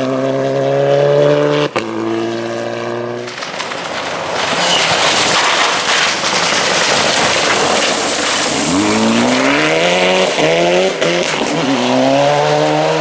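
Mitsubishi Evo rally car's turbocharged four-cylinder engine held at high revs, cut briefly about two seconds in, then drowned for several seconds by a loud rushing noise. Near the end the engine revs climb again through quick gear changes.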